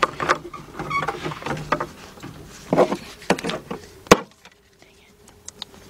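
Plastic fuel pump module knocking and scraping against the fuel tank opening as gloved hands work it down into the tank: scattered light knocks and rubbing, with one sharp click about four seconds in.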